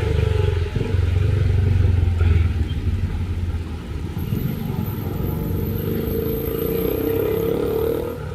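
A motor vehicle passing on a wet road in rain. Its low engine rumble is loudest in the first couple of seconds, then eases.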